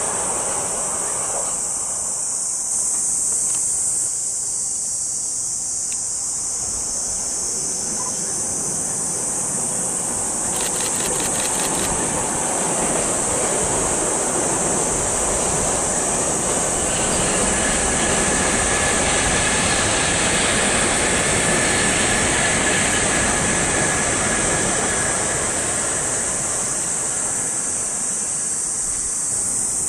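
An electric commuter train runs across a viaduct: its rumble swells over several seconds, peaks past the middle and fades away. A steady high insect drone runs underneath.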